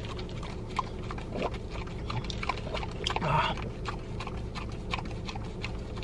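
A Dalmatian licks whipped cream from a small paper cup: quick, wet licks and mouth smacks at an uneven pace.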